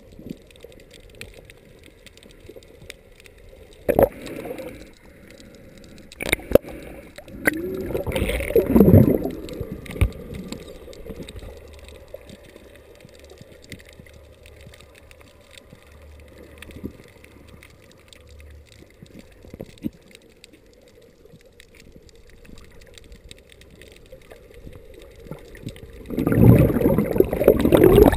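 Muffled underwater sound heard through a camera's waterproof housing: a steady low water hum with scattered sharp clicks, a loud gurgling rush about eight seconds in, and another loud rush of water near the end as the camera nears the surface.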